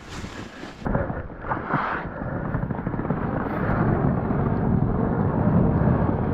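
Low, steady rumbling noise of an electric snowbike riding through deep powder, its track churning the snow. The rumble sets in about a second in and grows louder.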